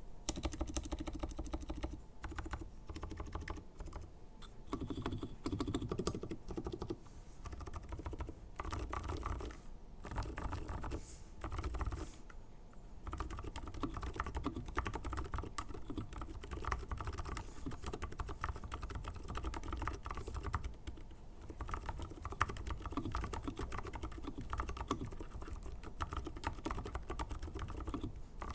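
Feker IK75 mechanical keyboard with silent brown switches and black pudding keycaps being typed on quickly and continuously, a soft rapid clatter of keystrokes with a few short pauses.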